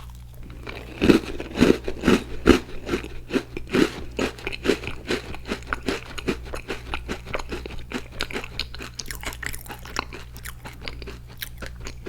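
Crunchy chewing of an Icee cookie close to the microphone: a run of crisp crunches, about three a second, loudest in the first few seconds and growing softer as the bite is chewed down.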